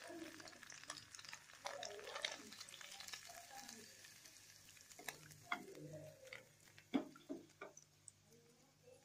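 Paneer cubes sizzling faintly in butter in a kadai, while a metal perforated skimmer scrapes and taps against the pan. The sizzle fades over the first few seconds and the scrapes and taps grow sparser, with one sharp tap about seven seconds in the loudest.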